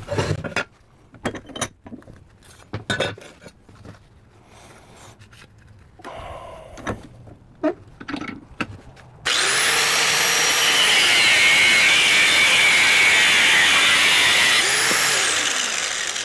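A few knocks and clanks of metal being handled at a vise. Then, about nine seconds in, an electric angle grinder with a cut-off wheel starts suddenly and cuts into a steel circular saw blade held in the vise, a loud, steady high whine with grinding for about seven seconds before it tails off.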